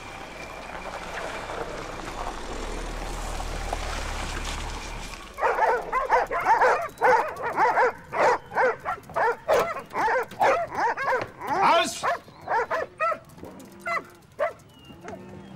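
A car approaches over a farm yard, its engine and tyres rising in a steady rumble for about five seconds. Then several dogs break into barking together, thick at first and thinning to scattered barks near the end.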